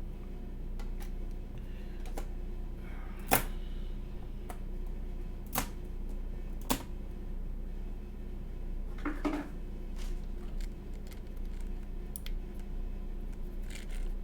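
Scattered sharp clicks and small knocks of a bare keyboard PCB and its USB cable being handled, the loudest about three seconds in, over a low steady hum.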